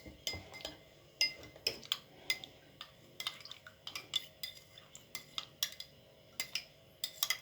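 A metal spoon stirring honey into a ginger, lime and water drink, clinking repeatedly against the side of the glass, about two or three light clinks a second with a short ring after each.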